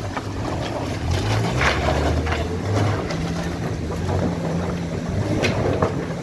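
Motorcycle engine running on the move, its low hum shifting up and down in pitch, with wind rushing over the microphone and a few short knocks.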